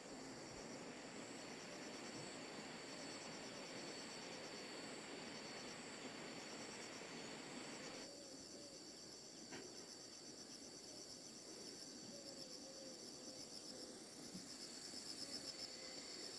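A steady, high-pitched chorus of insects, with a fast pulsing trill that grows stronger near the end.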